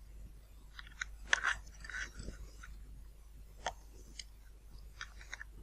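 Faint, scattered clicks and crackly rustles of hands feeding motor wires into a carbon tube through a foam model-airplane nose.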